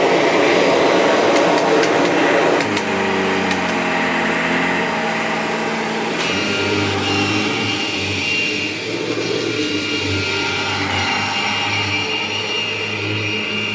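1998 Kirby Generation 5 upright vacuum cleaner running, loud and steady. Its sound shifts about three seconds in, and a thin high whine joins after about six seconds.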